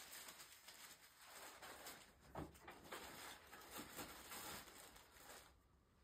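Near silence: room tone with faint hiss and a few soft rustles.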